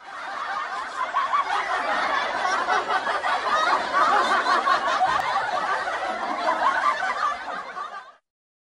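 Several people laughing and chuckling together, many voices overlapping, then cutting off abruptly near the end.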